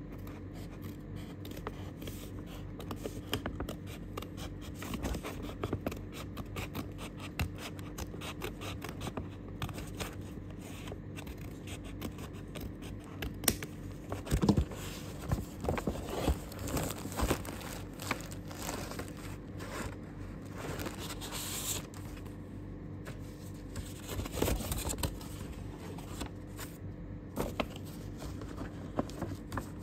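Kraft paper mailer bag being handled and opened: paper crinkling, scraping and tearing in irregular crackles and rustles, loudest about halfway through. Near the end, paper and plastic rustle as the contents are pulled out.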